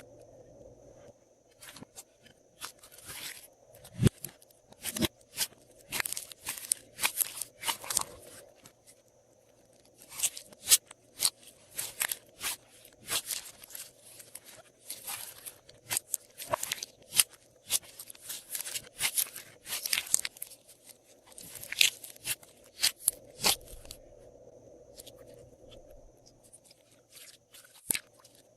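Glossy slime being worked by hand with add-ins mixed in, giving rapid, irregular sharp clicks, pops and crackles, with quieter pauses about a third of the way in and near the end.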